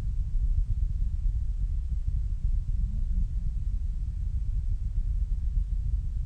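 Low, unsteady rumble of wind buffeting the microphone.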